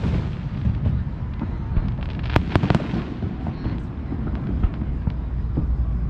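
Fireworks going off: a continuous low rumble of booms with scattered sharp cracks, three of them in quick succession about two and a half seconds in.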